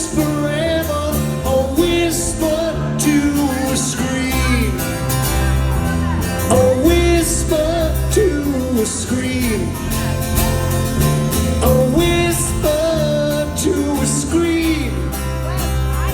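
Live rock band playing a song with singing over drums, bass and guitars.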